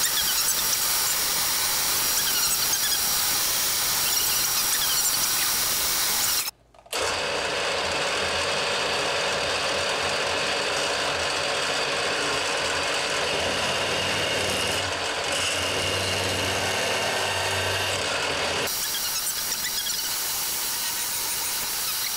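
A drill bit in a milling machine's chuck cutting into a steel bracket, with a steady squealing hiss. About six seconds in the sound drops out for a moment. For the next twelve seconds or so a lower hum of the machine running takes over, with a duller cutting sound. The squealing cut then comes back near the end.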